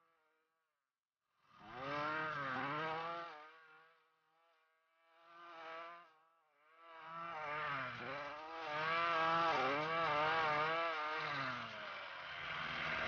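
Ryobi RY253SS 25cc two-stroke string trimmer engine revving up and down as it cuts tall grass, running again on a replacement carburetor. After about a second of near quiet it comes in short bursts, then runs steadily from about seven seconds in.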